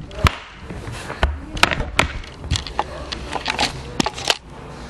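Handling noise from a handheld camera: a string of sharp knocks and rubbing, about nine knocks in five seconds, as it is moved and bumped about.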